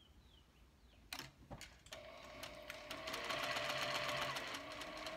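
Juki sewing machine stitching a seam in layered fabric: a couple of clicks about a second in, then the machine runs steadily from about two seconds in, with a fast, even ticking.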